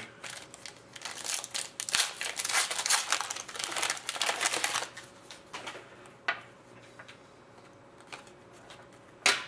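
Foil trading-card pack wrapper crinkling and crumpling in the hands for about five seconds. Then softer rustling of the cards being thumbed through, with a couple of sharp clicks.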